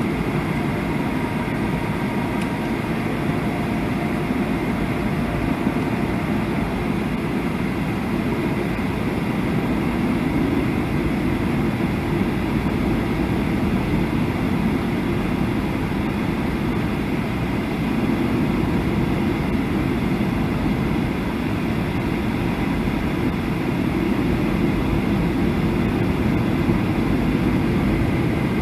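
Steady cabin noise inside a Boeing 737 on approach: a constant low rumble and rush of jet engines and airflow.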